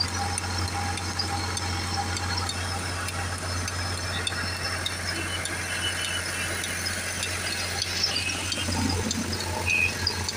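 Tractor diesel engine running steadily, driving a borewell pump head by a long flat belt from its pulley. Near the end, water gushing out of the discharge pipe splashes into a pool.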